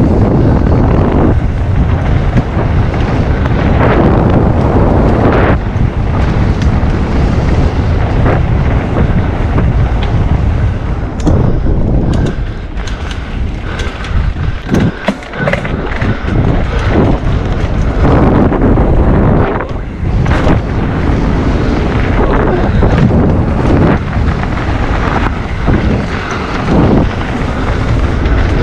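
Wind buffeting an action-camera microphone on a fast e-mountain-bike descent, over a steady rumble of tyres on the trail. Around the middle come a run of sharp clattering knocks as the bike goes over rough ground.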